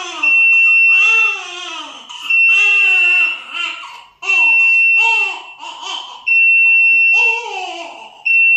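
Newborn baby crying in about five wails of roughly a second each, every one rising and then falling in pitch, while being bottle-fed and resisting the feed. A high, steady electronic alarm tone sounds in long repeated beeps underneath.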